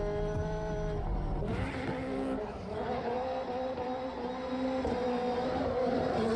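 Subaru gymkhana drift car's engine held at high revs while it drifts and spins its tyres in smoke. The engine note rises slightly, dips briefly about a second in, then holds steady.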